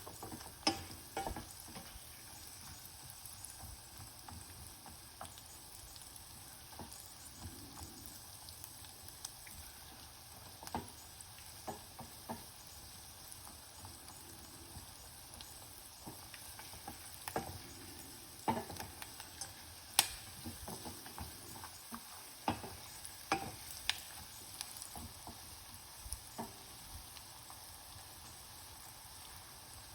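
Cashews, cumin, curry leaves, ginger and pepper sizzling faintly in hot ghee in a pan, the cashews browning to golden, with scattered light clicks and knocks of a spoon against the pan and a sharper knock about twenty seconds in.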